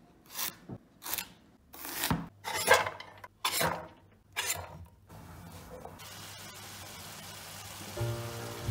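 A chef's knife on a wooden cutting board: about six cutting and scraping strokes as diced carrot is cut and the pieces are pushed off the board into a pan. From about five seconds in, diced carrot and celery fry in oil with a steady, even sizzle.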